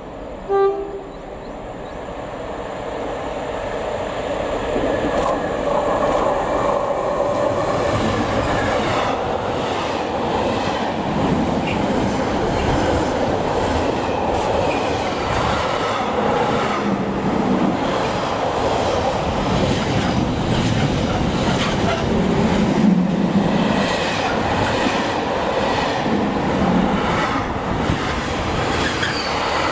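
Intermodal container freight train passing at speed. A short horn toot about half a second in, then the train's noise builds as the locomotive approaches and goes by, followed by a long run of container wagons whose wheels clatter rhythmically over the rails.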